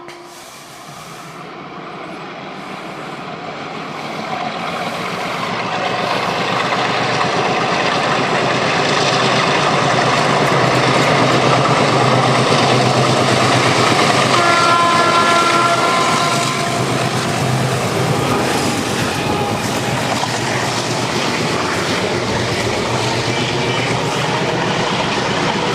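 ALCo DL537 diesel locomotive's engine chugging hard under throttle, growing louder over the first several seconds and then holding steady. Its horn gives one blast of about two seconds a little past the middle.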